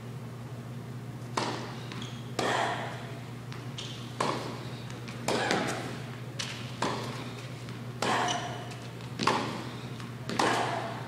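Tennis ball being struck by rackets and bouncing on an indoor hard court during a rally. About nine sharp hits come roughly a second apart, each echoing through the large hall, over a steady low hum.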